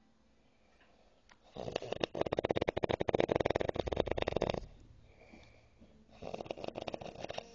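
A drunk man snoring: one long, loud rattling snore of about three seconds, then a shorter, weaker one near the end.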